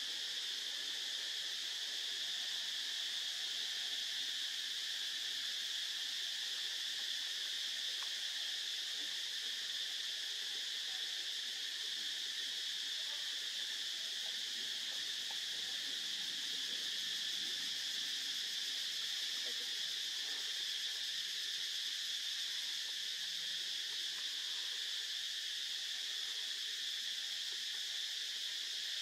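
A steady chorus of insects: an even, high-pitched buzz that holds without a break.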